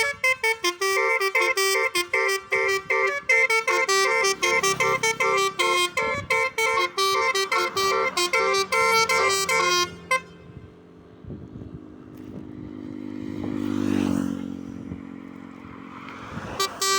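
Multi-tone telolet bus horn playing a fast, note-by-note song melody for about ten seconds, then stopping. A vehicle engine rumble swells and fades, and the horn melody starts again near the end.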